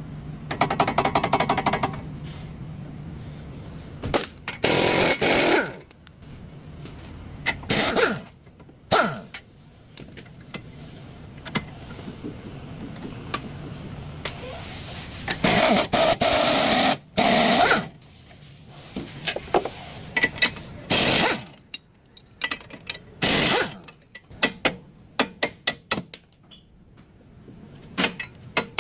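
Hand and power tools at work during a car repair: several one- to two-second bursts of rapid rattling hammering, with metal clanks and scrapes between them and a quick run of clicks near the end.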